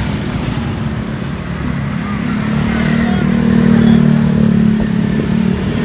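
Street traffic rumble, with a motor vehicle's engine passing close by: its steady note grows louder about a third of the way in, is loudest past the middle and eases off near the end.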